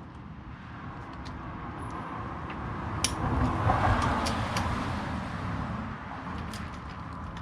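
A car passing by, swelling up to a peak about halfway through and then fading away, with a few light metallic clicks.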